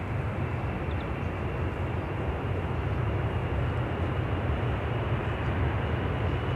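Boeing 747 freighter's four jet engines at takeoff power, a steady deep rumble growing slightly louder as the jet rolls toward the microphone.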